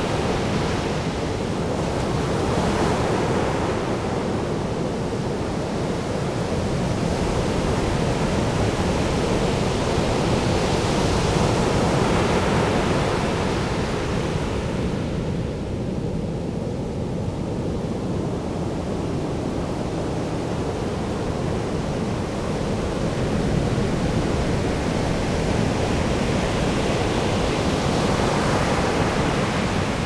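Pacific surf breaking and washing up a sandy beach: a continuous rushing noise that swells and eases as waves come in, softer for a few seconds around the middle.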